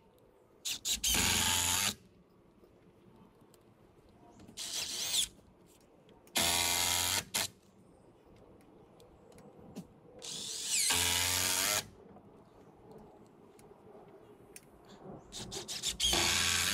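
Cordless drill driving screws into wooden porch framing boards, the motor whirring up in five separate runs of about a second each.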